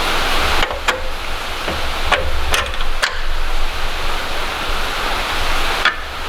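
Steady noisy hiss with about five sharp clicks and knocks standing out over it, as of tools and metal parts being handled during engine-bay work.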